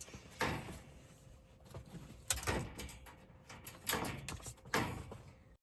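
Several short scuffs and bumps of movement inside a campervan, the loudest about two and a half seconds in.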